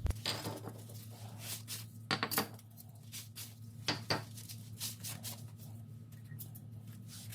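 Scattered light metallic clicks and clinks of brake hardware being handled, over a steady low hum.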